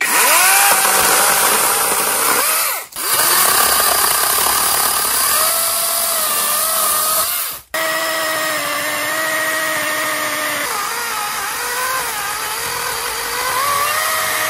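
Cordless 20-volt electric chainsaw with a 12-inch bar cutting wood: a high motor whine over the rasp of the chain, spinning up at the start and dipping in pitch as the chain bites. The sound breaks off briefly twice, about three seconds in and about halfway through.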